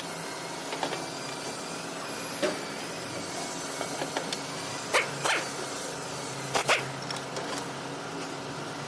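Engine running steadily with a faint wavering high whine, from an engine whose timing drive the owner says is making a loud sound. A few short sharp bark-like sounds stand out over it, two pairs of them close together around the middle and about three-quarters through.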